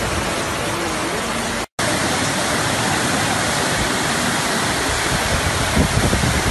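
Floodwater rushing through a street: a loud, steady rush of fast-moving water. It breaks off for a moment of silence just under two seconds in, then carries on.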